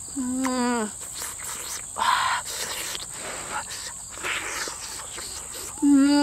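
Crickets chirring in a steady high band throughout, while a woman eating roasted fish makes two short humming 'mmm' sounds of enjoyment, each falling in pitch, one near the start and a louder one near the end. Soft eating noises come in between.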